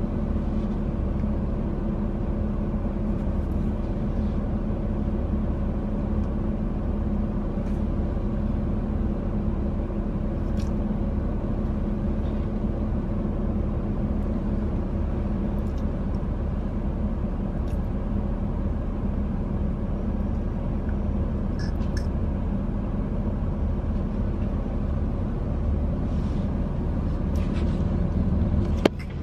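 Steady engine hum and road rumble heard from inside a moving car's cabin.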